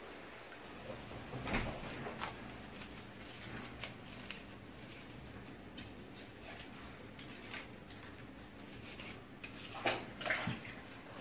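Scattered light clicks and knocks from a coconut-stick broom sheathed in a plastic bottle being turned and handled over a gas stove flame while the plastic is heated onto the sticks. A few louder knocks come about one and a half seconds in and near the end.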